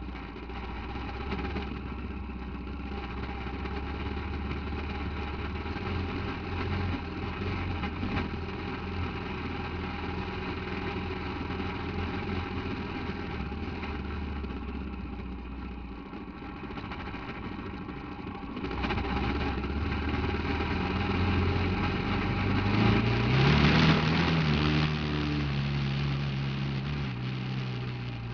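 Off-road buggy engine running steadily at low revs, then revving up with a rising pitch about three-quarters of the way through, its loudest point, before easing back down.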